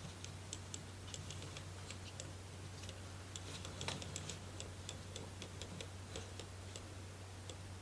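Faint, irregular light clicking and tapping of small wooden model-kit parts being handled and fitted together.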